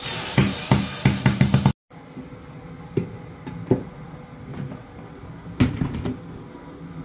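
Milwaukee Fuel cordless drill with a right-angle attachment driving a screw into plywood, ending in a quick series of clicks, then cut off abruptly. After that come a few light knocks and taps of a clear plastic storage tub being handled on the plywood.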